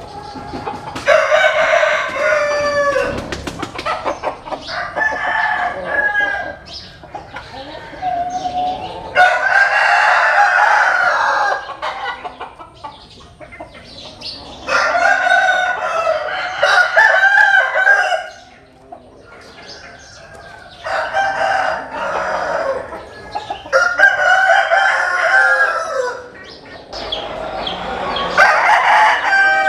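Roosters crowing repeatedly: about six long crows, each around two seconds, spaced a few seconds apart.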